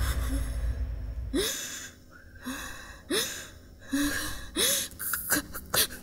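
A woman gasping and sobbing in distress: a series of short, catching breaths with a rising pitch, several in a row. A low rumble fades out in the first second and a half.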